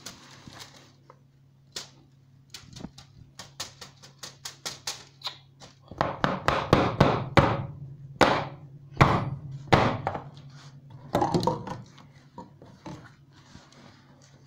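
Handling noise on a kitchen counter: a run of light taps and knocks, then louder knocks and scraping from about the middle until near the end, over a steady low hum.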